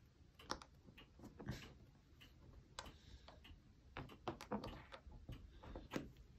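Faint, irregular light clicks and taps as a small brass ladder part is handled and clamped in a metal bending jig.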